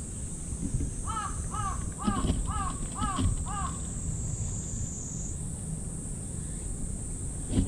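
A crow cawing six times in a quick, even series, about two calls a second, over a steady high-pitched drone.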